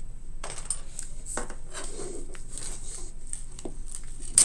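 Roll of 1½-inch double-sided tape being pulled off and pressed around a round box, with irregular crackly rustling and small clicks as it is handled. One sharp tap near the end.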